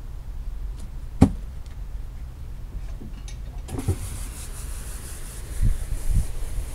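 Rug dropped onto a wooden deck with a sharp thump about a second in, followed by a few softer thuds as it is settled flat. A steady high hiss starts about halfway through, over a low background rumble.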